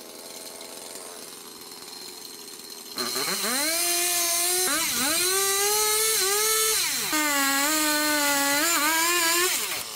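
Two-stroke chainsaw running low for about three seconds, then revved up to full throttle and cutting, its pitch dipping and recovering a few times before it drops off near the end.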